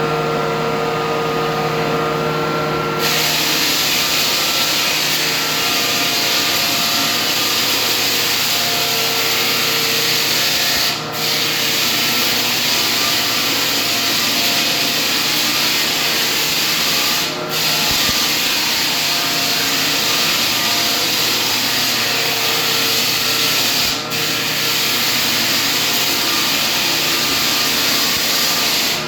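Floor sanding machine running on a hardwood floor: a steady motor hum under loud, even sanding noise. The hiss grows louder about three seconds in, and the sound dips briefly three times.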